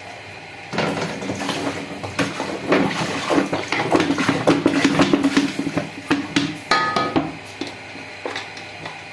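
A spoon clinking and scraping in a cooking pan of milk and vermicelli: a run of irregular clinks and knocks, with one brief ringing clink about seven seconds in.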